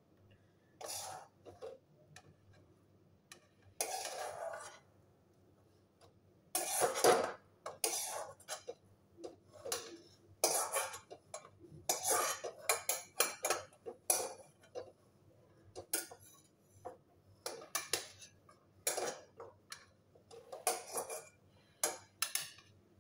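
A metal utensil scraping and clinking against a steel kadai as cooked Maggi noodles are scooped out into a plastic bowl: irregular scrapes and knocks, a few of them loud.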